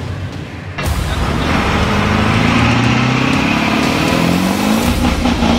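Vehicle engine revving up: it comes in abruptly about a second in, then climbs steadily in pitch for several seconds before holding high near the end.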